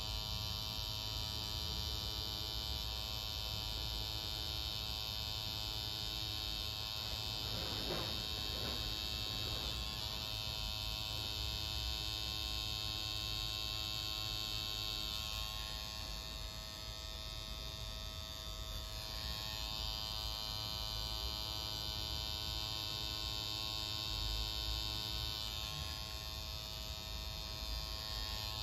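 Electric tattoo machine buzzing steadily as the needle works ink into the skin.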